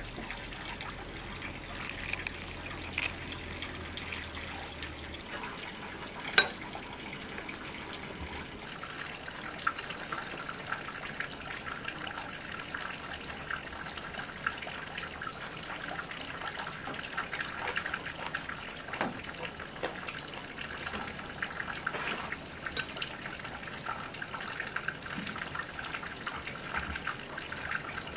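Water trickling steadily with small splashes and ticks, and one sharp click about six seconds in.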